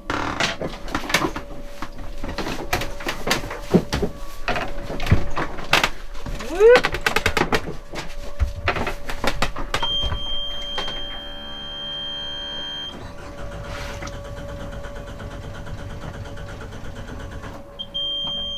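A yacht's inboard diesel being cranked on its starter without catching, because air is still in the fuel lines after running the tank dry. The engine panel's alarm buzzer sounds as a steady high beep for about three seconds midway, then briefly again near the end. Before that comes a clatter of knocks and clicks.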